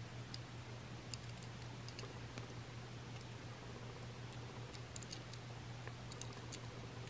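Faint, irregular small clicks and taps of fingers handling a die-cast metal toy train engine, over a steady low hum.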